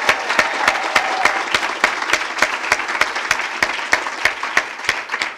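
Audience applauding, with a few loud claps close by striking about three times a second; the applause thins out near the end.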